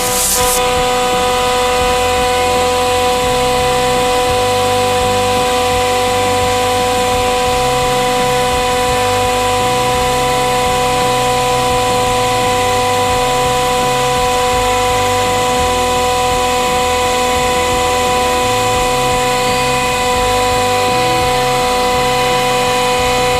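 A 100-ton hydraulic press's pump and motor running with a steady whine that holds at one pitch and cuts off suddenly at the end.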